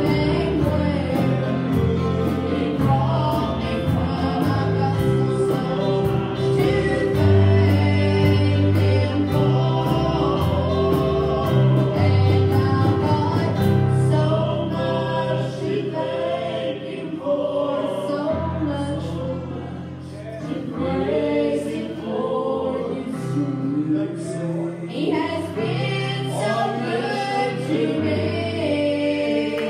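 Gospel worship song sung by a group of singers with a live band: drums keeping a steady beat, bass and keyboard underneath. The drums drop back about halfway through while the singing carries on.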